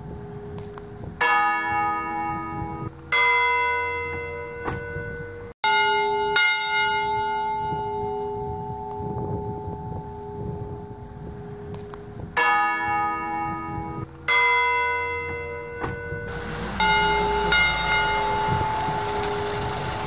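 Church bells tolling slowly: single strikes of bells of different pitch, about two seconds apart, each left to ring and fade, the mourning toll for the arrival of a dead bishop's remains. A low rumble joins in during the last few seconds.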